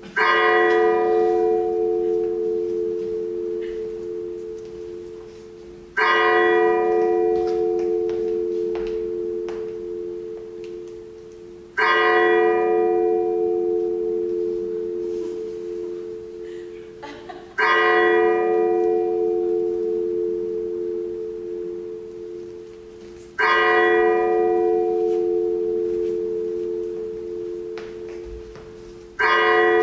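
A bell struck six times at an even, slow pace, about six seconds apart. Each stroke begins suddenly with a bright clang that fades quickly, while a deeper two-note hum rings on and dies away slowly until the next stroke, like a tolling bell.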